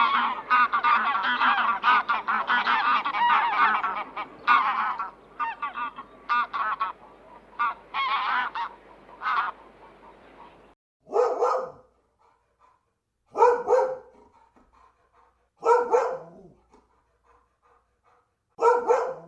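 A flock of waterfowl honking and calling over one another, many short calls in quick succession. After an abrupt cut, four single loud calls follow, each about half a second long and a couple of seconds apart.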